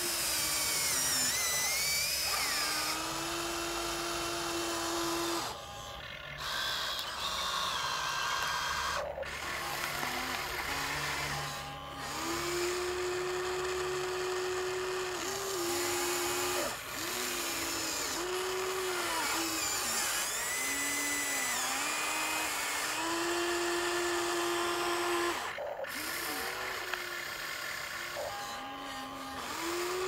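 Electric motors of a Huina remote-control excavator whining as the boom, arm and bucket move. The whine runs in stretches of a few seconds with short pauses, dipping in pitch each time a motion starts or stops.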